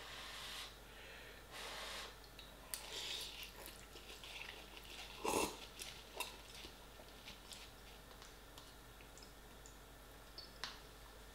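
A person eating soft rice noodles from a paper pot: quiet breaths, chewing and slurping, with light clicks of metal cutlery against the pot. The loudest sound is a short slurp about five seconds in.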